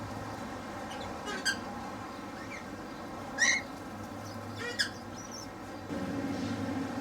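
Cockatiels giving three short, high-pitched calls, the loudest about halfway through, over a steady low background hum.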